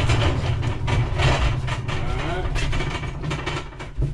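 Wheeled dolly loaded with an engine rolling across a hollow enclosed-trailer floor: a steady low rumble with rattles and knocks that stops about four seconds in.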